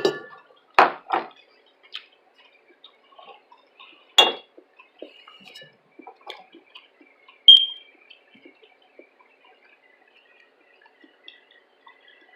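Mukbang eating sounds close to the microphone: utensils clinking against a dish among many small wet clicks. There are louder clinks about four and seven and a half seconds in, and the second rings briefly.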